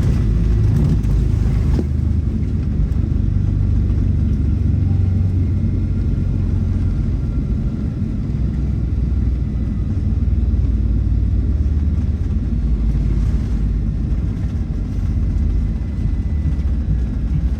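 Steady low rumble inside the cabin of an arriving Delta Boeing 757-300 airliner.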